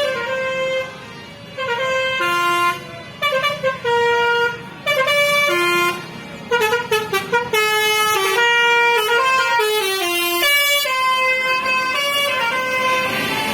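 Tour bus telolet horn, a multi-tone musical air horn, playing a melody of stepped notes. It plays runs of quick short toots early on and longer held notes in the second half, with a bus engine running underneath.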